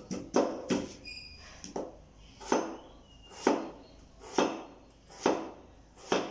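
Meat cleaver chopping on a cutting board: a series of sharp chops, a few quick ones at first, then steady single strokes about one a second.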